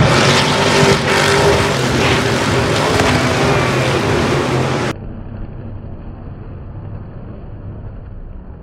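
Off-road racing trucks' engines revving hard and loud as the trucks race past and launch over a jump, the pitch rising and falling. About five seconds in, the sound cuts abruptly to a much quieter, muffled engine rumble.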